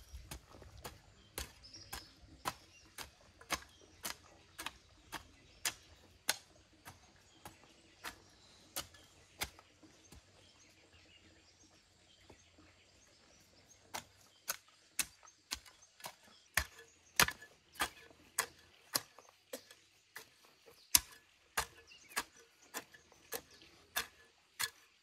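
A hand tool chopping in a steady rhythm, about two sharp strikes a second. The strikes stop for a few seconds near the middle, then resume louder.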